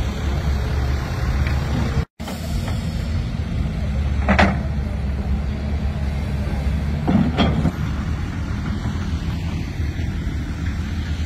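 Diesel engine of a road-rail excavator running steadily at a low pitch, with two short, sharper noises about four and seven seconds in. The sound cuts out briefly about two seconds in.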